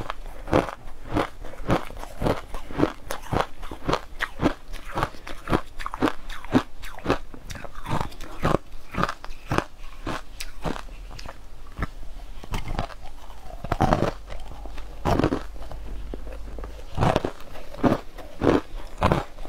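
Close-up chewing of frosty crushed ice: steady crunching, about two or three crunches a second, with a short lull about two-thirds of the way through.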